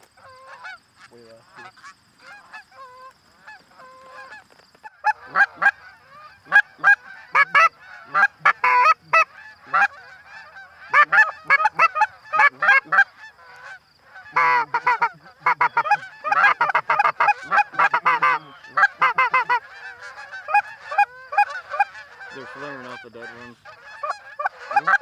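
A flock of Canada geese honking: many short overlapping honks, sparse and faint at first, then loud and dense from about five seconds in as more birds come over.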